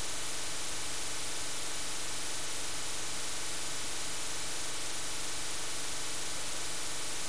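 Steady static hiss, like white noise, at an even level throughout, with a faint low hum underneath; no clicks or turns of the puzzle stand out.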